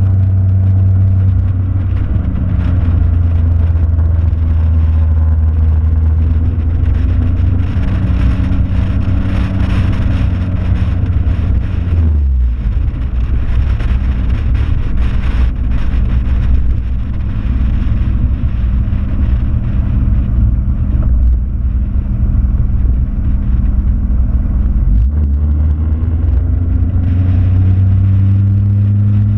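Car engine running steadily under light load, with wind and road noise through the open window of the car; the engine note shifts a few times, most clearly about twelve seconds in and again near twenty-five seconds.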